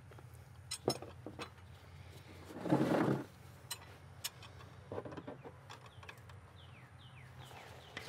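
Steel wrench clinking against the transmission drain plug of a Subaru Sambar as it is set on the plug and turned to loosen it: several sharp metal clicks, with a louder, longer rush about three seconds in.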